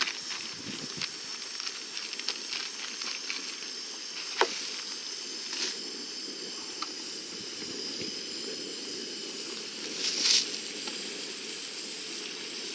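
Chicken, onions, squash and zucchini sizzling and crackling in a pan on a camp stove: a steady hiss with scattered pops and clicks, and a louder burst of sizzle about ten seconds in.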